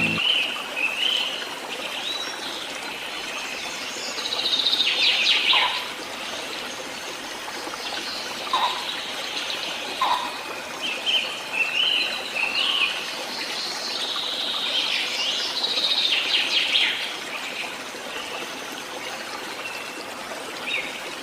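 Small birds chirping and trilling in bursts every few seconds over the steady hiss of running water from a stream: a nature ambience.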